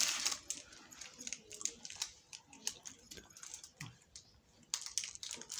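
Light scattered rustling and small clicks from close-up handling, with a louder rustle at the start and another near the end.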